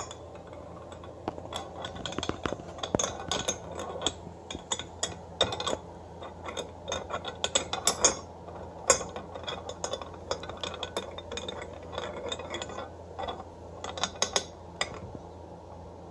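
Allen key turning socket-head cap screws into a billet aluminium starter bracket: a run of irregular light metallic clicks and clinks as the key seats in the screw heads and is turned.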